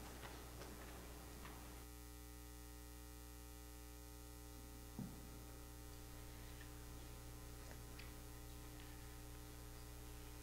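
Steady electrical mains hum in the recording, with a few faint ticks in the first two seconds and one soft thump about halfway through.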